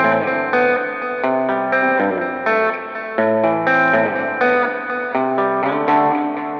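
Background music: a plucked electric guitar with effects, playing a run of separate notes.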